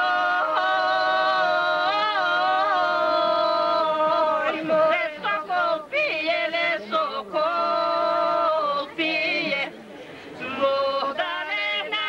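A women's folk singing group singing a Pirin-region Bulgarian folk song unaccompanied, in long held, ornamented notes with a steady low note held under the melody. The phrases break for breath, with a short pause about ten seconds in.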